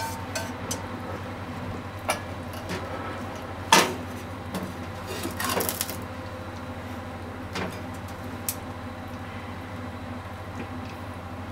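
Kitchen handling noises: a metal frying pan and wooden chopsticks knocking and scraping against the gas stove grate and a ceramic plate, with one sharp knock about four seconds in and a short scraping clatter soon after. A steady low hum runs underneath.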